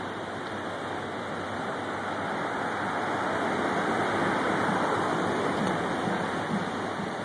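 Road traffic noise: a steady rush of passing vehicles that grows louder about four to five seconds in, as one passes close.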